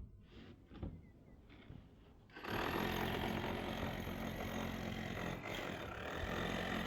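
A machine starts running loudly and steadily about two and a half seconds in, with a low hum under a noisy rattle, after a few faint knocks.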